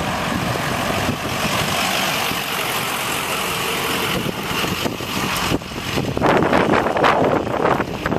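Box ambulance's engine running as it drives slowly past close by, mixed with road and traffic noise, with no siren. The sound gets louder and choppier near the end.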